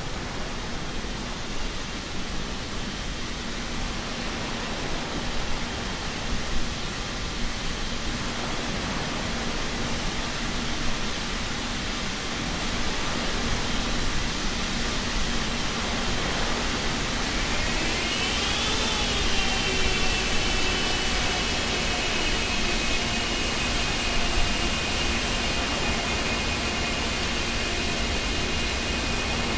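Boeing 777 jet engines running with a steady rush of noise; about two-thirds of the way through, a high engine whine rises in pitch and then holds steady.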